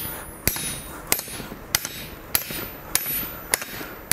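Hand hammer striking a red-hot bar on the edge of an anvil, bending the end down: about seven evenly spaced blows, under two a second, each with a short metallic ring.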